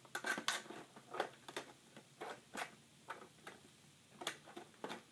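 Scissors snipping and clicking at toy packaging in short, irregular cuts, with small snaps of plastic and cardboard.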